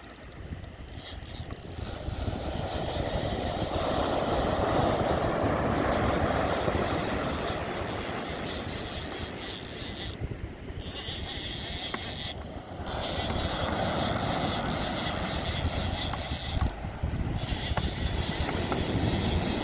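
Wind buffeting the microphone over surf breaking on a beach, a rough steady rush that swells twice and eases.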